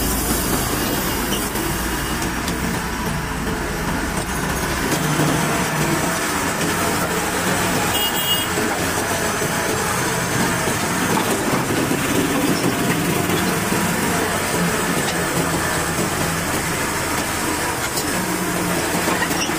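Steady diesel engine and vehicle noise: a Komatsu PC120-5 excavator's engine running close by, mixed with road traffic.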